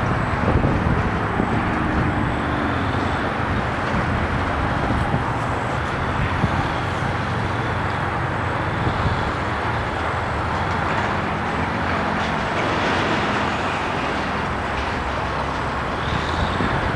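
Steady highway traffic noise and wind, with the diesel engine of a Link-Belt LS-518 crawler crane working through it at times.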